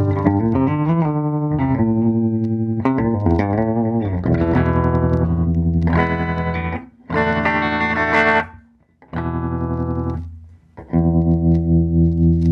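Electric guitar played through a vintage Fender Princeton tube amp with a 10-inch speaker: picked single-note lines, then strummed chords with a couple of short breaks, ending on a held chord that pulses in level.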